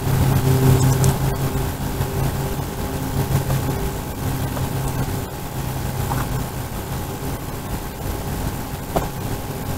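A motor engine running at a steady low hum, loudest over the first few seconds and then fading.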